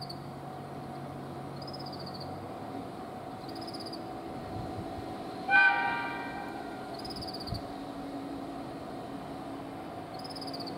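Diesel railcar giving one short blast on its horn about halfway through as it approaches, the blast fading over about half a second, over the low steady running of its engine.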